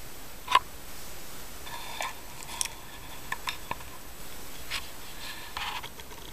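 17-day-old Siamese kittens nursing: short squeaks and clicks, the sharpest about half a second in, with a thin high mew held for about two seconds in the middle.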